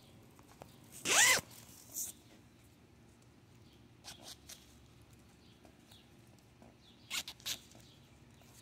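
Zipper on a mesh herb drying rack being pulled. There is one quick loud zip about a second in, then a few shorter zipper rasps, three in quick succession near the end.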